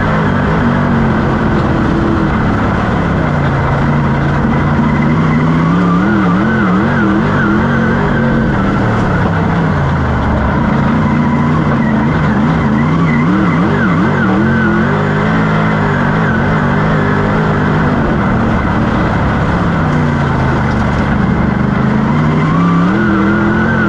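Dirt-track race car's engine heard from inside the cockpit at racing speed. The revs fall away three times, about ten seconds apart, then climb again each time, easing off into the turns and pulling hard down the straights.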